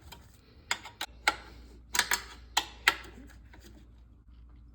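Sharp clicks and taps of small hard parts being handled, about six over three seconds, over a faint low hum.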